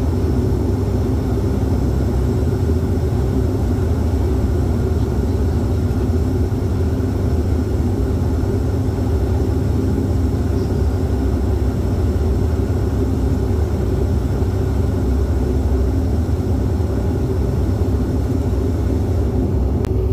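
Dash 8-400 turboprop's engines and propellers heard from inside the cabin, a steady low drone with a hum as the aircraft taxis and turns onto the runway at low power. There is no build-up of takeoff power.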